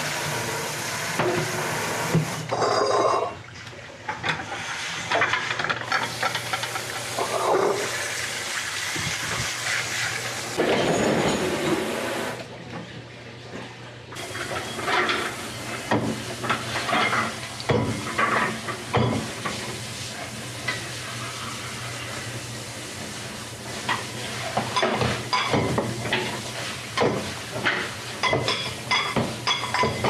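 Hand dishwashing: running or spraying water with dishes and utensils clinking and knocking, the clinking thicker near the end.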